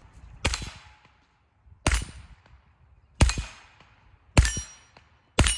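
.22-calibre rifle fired five times, roughly a shot every 1.2 seconds, each crack followed by a brief ringing tail.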